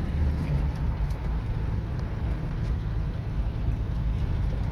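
Steady low rumble of a Chevrolet S10 pickup being driven: engine and road noise.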